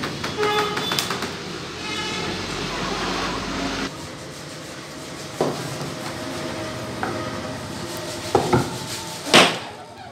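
Woodworking shop noise: a steady machine noise that drops off about four seconds in, then a handful of sharp knocks, the loudest one near the end.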